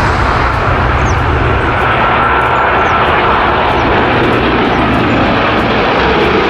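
Airplane engine running, a loud steady rumbling noise that starts suddenly and holds level throughout.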